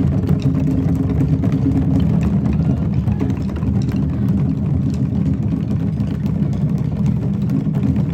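Many hand drums played together in a fast, dense roll, merging into a steady low rumble.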